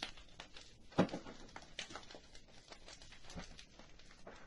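Faint, irregular clicks and crackles, the sharpest about a second in.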